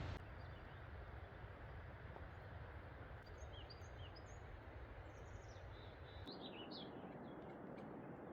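Faint birds chirping: a scatter of short, high chirps a few seconds in, over steady low outdoor background noise.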